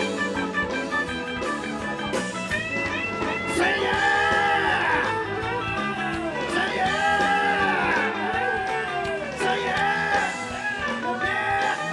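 Live blues-rock band music, with a lead line of notes bent up and down over the band from about three seconds in.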